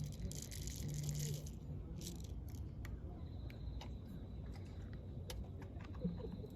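Campfire crackling with scattered sharp pops and a few short rustling bursts in the first two seconds. A faint steady high whine joins about halfway through.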